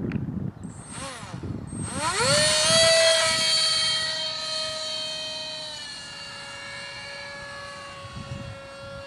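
Small electric ducted-fan motor of a foam RC F-16 jet: a brief rising whine about a second in, then spooling up fast to a steady high-pitched whine for the hand launch, easing back slightly about six seconds in as it flies.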